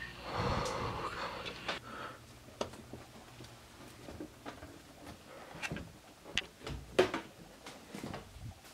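Handling noise from a handheld camera being carried: rustling and rumbling in the first two seconds, then scattered sharp clicks and knocks, the loudest about seven seconds in.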